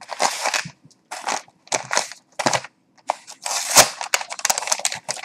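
Brown kraft packing paper being pulled out and handled, crinkling in a few short bursts and then a denser run of rustling and crackling, loudest a little before the four-second mark.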